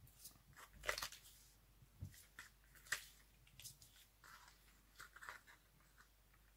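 Faint rustling and scattered light ticks of a card panel being handled as 3D foam adhesive pads are pressed onto it, about half a dozen soft sounds in all.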